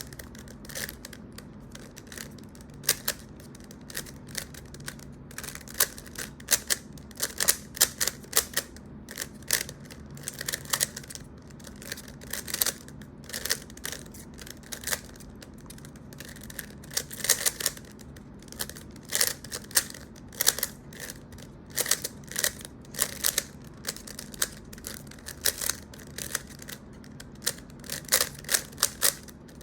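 A 3x3 Rubik's cube being turned quickly by hand: its plastic layers click and clack in rapid bursts with short pauses between them, over a low steady hum.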